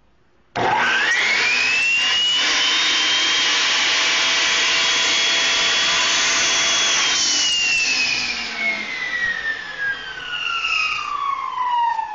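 Delta 10-inch model 36600 table saw switched on about half a second in: the motor and blade whine up to speed within about two seconds, run steadily, then are switched off at about seven seconds and coast down with the whine falling in pitch. The saw starts and runs, so it works.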